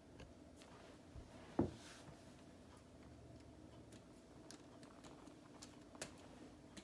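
Faint scattered clicks and taps of handling, two of them sharper, about a second and a half in and near the end, over a low steady hum.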